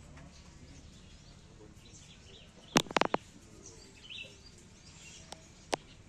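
Sharp knocks: a quick cluster of about four around three seconds in, then two single ones near the end, over a steady background hum with faint bird chirps.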